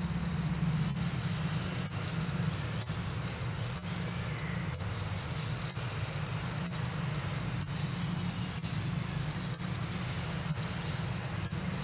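Steady low rumble with a faint hiss over it, unchanging throughout.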